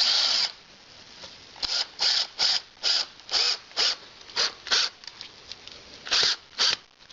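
A hand tool working in short rasping strokes, about ten of them in uneven groups with short pauses between.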